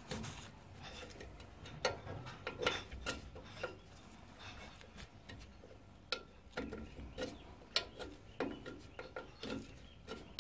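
Spanner working a brake pipe union nut loose at a drum brake's rear wheel cylinder, turned in short strokes and refitted on the nut each time: a scatter of light metallic clicks and scrapes at an uneven pace.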